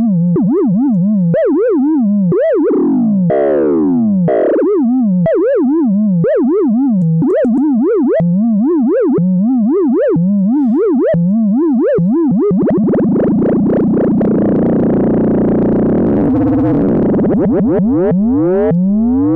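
LushOne synthesizer's self-resonating filter, its pitch swept by two LFOs multiplied together through the VCA, making a warbling electronic tone that swoops up and down several times a second. A little past halfway the modulation turns into a fast, buzzing warble for several seconds, then goes back to slower swoops near the end.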